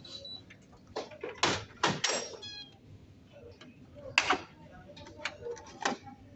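Plastic clicks and knocks as the waste toner container of a Canon imageRUNNER 2525/2530 copier is unlatched and pulled out of the machine: about half a dozen sharp knocks, with a brief pitched squeak a little after two seconds in.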